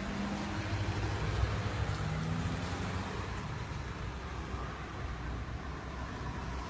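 A motor vehicle passing on a road: a low engine hum whose pitch rises slightly in the first few seconds, over a steady low rumble of outdoor noise.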